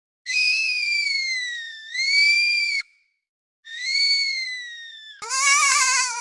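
A toddler whining in drawn-out, high-pitched cries, several in a row, the pitch sliding down and then up again; the last cry, near the end, is lower and wavers.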